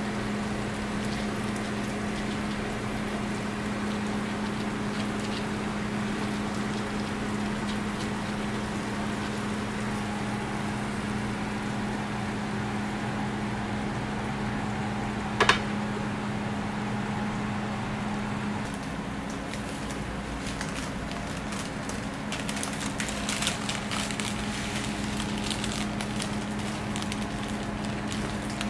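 A steady low machine hum, with one sharp knock about halfway through. Near the end comes a crinkling of a paper waffle wrapper as it is folded around the waffle.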